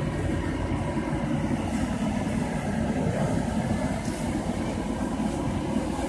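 Fire engine's diesel engine running steadily at pumping speed, feeding the aerial ladder's water stream: a low, even rumble with a faint steady hum.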